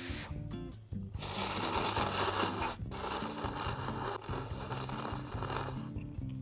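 A person slurping instant udon noodles in one long draw that starts about a second in and lasts until near the end, broken briefly twice. Soft background music plays underneath.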